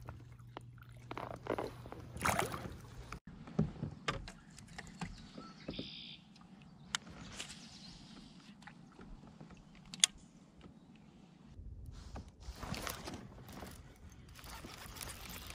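Water sloshing and splashing around a kayak, with scattered light knocks and clicks; one sharp click about ten seconds in.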